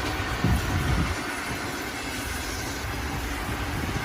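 Train sound effect: the steady rushing rumble of a moving train, with a couple of low thumps in the first second.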